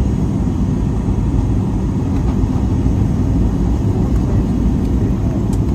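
Steady low rumble inside the cabin of a Boeing 737 MAX 8-200: engine and airflow noise, with no change in level.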